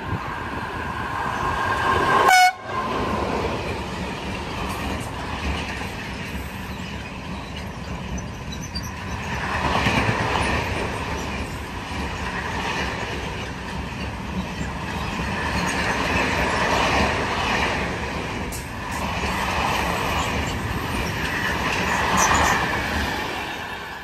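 A train sounds its horn, a steady two-note tone, then runs through the station with a long rumble of wheels on rails that swells and fades in waves and dies away near the end. A short loud burst cuts in about two seconds in.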